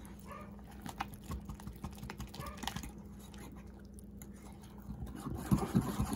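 A small wire whisk beats thin crepe batter in a ceramic bowl, making a string of light clicks and scrapes against the bowl, a little louder near the end.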